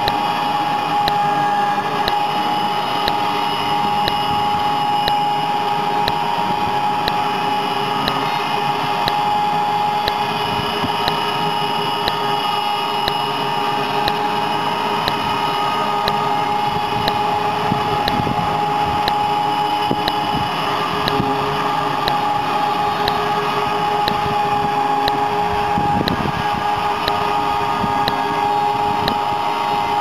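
AVG LP-60 electric band sawmill running and sawing lengthwise through a log: a steady whine from the electric drive and band blade, with a faint regular ticking.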